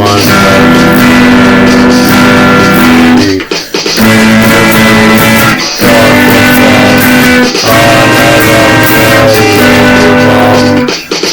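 Instrumental music led by guitar, with sustained chords that change every two seconds or so and brief breaks between phrases.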